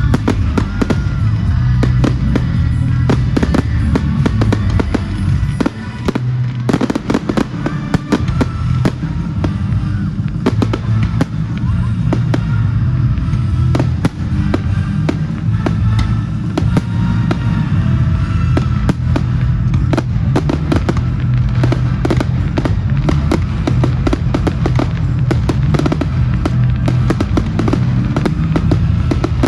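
Fireworks going off continuously: rapid bangs and crackling bursts, with music playing underneath.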